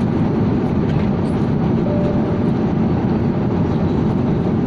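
Steady, loud low rumble of jet airliner cabin noise, the even roar of engines and airflow heard from inside the passenger cabin.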